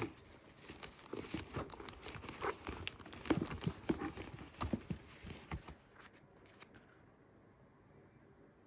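Packaging being handled and torn open: irregular crinkling, tearing and small taps that stop about seven seconds in.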